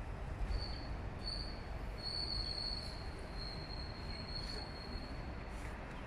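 A high, thin squeal on one steady pitch: two short squeaks about half a second in, then one held for about three and a half seconds, stopping near the end, over a steady low rumble.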